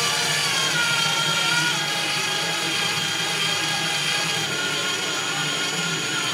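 Electric drill running steadily, its oversized bit boring into a wine bottle's cork and shredding it into shavings. The motor's note drops a little about two seconds in.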